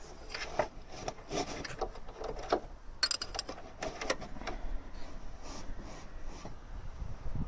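Hand tools worked on a VAZ 2109 engine during a rod-play check: a screwdriver pressing and scraping on a piston through the spark plug hole. The result is irregular metal clicks, small knocks and rubbing scrapes.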